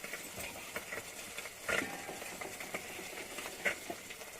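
Fish pieces frying in oil in a pan, a faint steady sizzle with scattered small crackles and a couple of louder pops, about a second and a half and three and a half seconds in.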